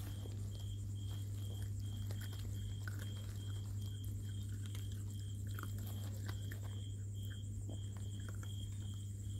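Puppies chewing, heard as small scattered clicks and crunches. Under them run a steady low hum and a faint high-pitched chirp that repeats about three times a second.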